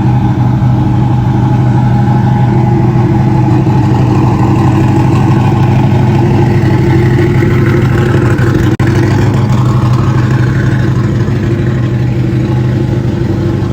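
Turbocharged LS V8 in a Fox body Mustang running steadily and loud, with a deep even note.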